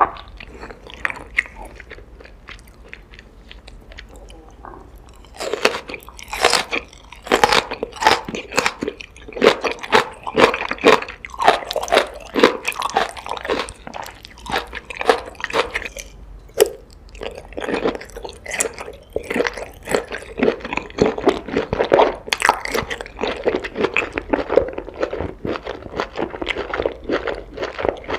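Close-miked eating: bites and chewing of crunchy food. Fairly quiet for the first five seconds, then many quick, sharp crunches.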